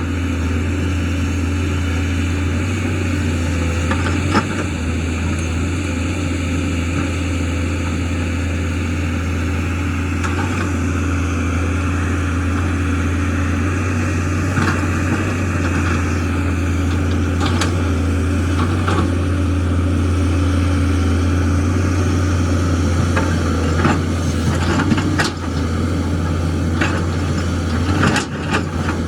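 JCB excavator's diesel engine running steadily under work, with scattered sharp knocks and clatters, more of them in the second half.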